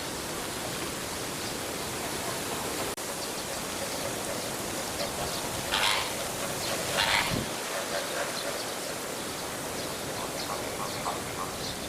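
Steady rushing noise like running water, with two short louder sounds about six and seven seconds in.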